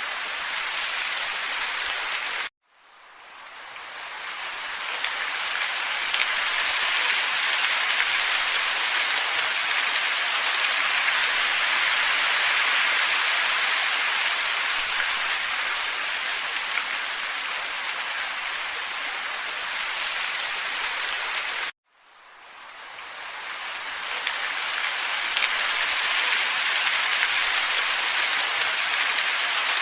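Steady hiss of a wind ambience track. It cuts out abruptly twice, about two seconds in and again near the end, and each time fades back in over a couple of seconds, like a loop restarting.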